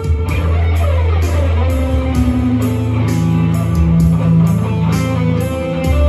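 Electric guitar, a Telecaster-style solid-body, playing an improvised lead over a backing track with a steady beat. The notes slide down about a second in, then settle into long held notes lower down.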